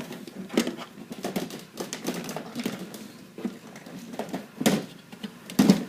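Plastic printer housing being pried and worked at by hand and screwdriver: irregular clicks, knocks and creaks, with the loudest knocks about half a second in and near the end.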